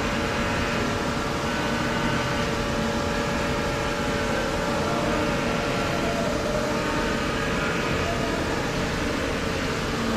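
Jyoti RDX 20 CNC vertical machining center running a program: a steady mechanical hum with several steady tones.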